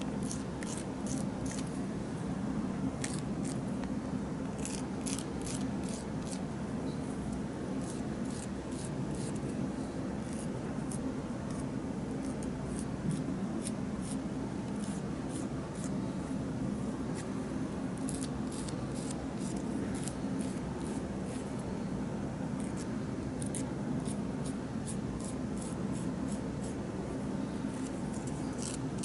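Emery board filing fingernails with its smoothing side: runs of quick, short, high scratchy strokes, several a second, with pauses between runs as it moves from nail to nail. A steady low hum underneath.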